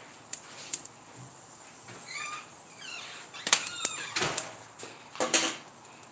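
Metal tongs clicking and knocking against the grill grate as ears of corn are turned, several sharp clicks with the loudest in the second half. A short wavering chirp-like call sounds about two seconds in.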